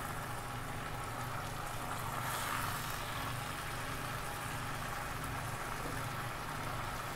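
A steady low motor-like hum with a faint even hiss from a pan of water spinach cooking on the stove, the hiss a little stronger about two to three seconds in.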